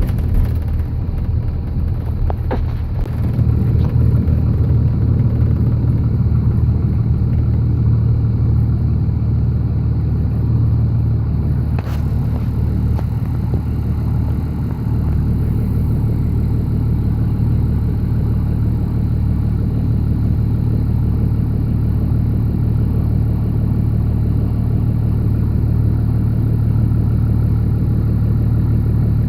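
Tree-trimming helicopter with a hanging saw, running steadily with a low rotor drone, mixed with wind rumble.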